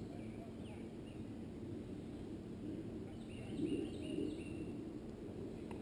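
A songbird singing series of short, quickly falling chirps, one bout at the start and another around the middle, over a steady low outdoor rumble.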